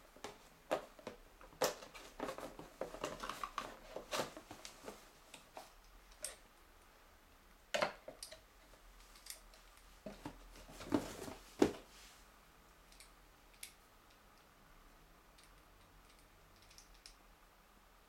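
Handling noise from unboxing a baitcasting reel. First a dense run of cardboard scrapes, rustles and taps as the box lid and insert are opened. Then scattered clicks and knocks as the Shimano Chronarch 51E reel is lifted out and turned in the hands, with a couple of louder knocks just before the middle and a few faint light ticks near the end.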